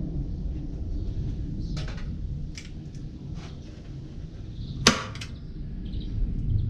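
Hand staple gun firing a staple through carpet into wood: one loud sharp snap about five seconds in, after a few fainter clicks of handling. A steady low rumble lies underneath.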